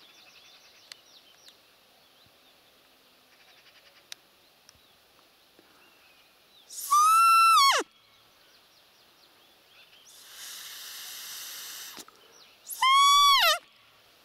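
Two loud squeaky peeps from a roe deer call (manok), each about a second long, rising then falling in pitch, the first about halfway through and the second near the end. They imitate a roe deer's fiep to lure a buck. A steady hiss lasts about two seconds between them.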